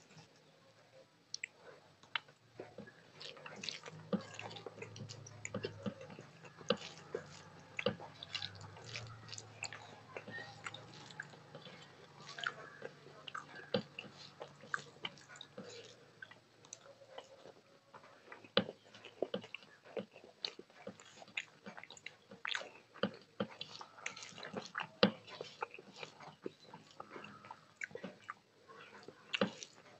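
Rice and cauliflower curry being kneaded and mixed by hand on a steel plate: irregular wet squishes and clicks of fingers against the metal, mixed with close-miked chewing.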